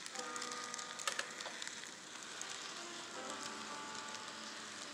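N scale model passenger cars rolling past on track: a steady fine rattling hiss of small wheels on the rails, with a few sharp clicks about a second in.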